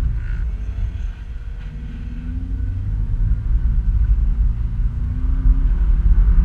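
Subaru Outback driving through soft sand, heard from inside the cabin: a heavy low rumble of engine and running gear. It eases about a second in, then builds again, with the engine note rising twice.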